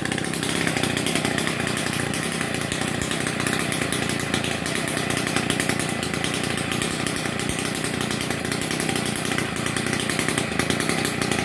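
Stihl MS 070 two-stroke chainsaw running steadily at high revs, sawing through a palm trunk.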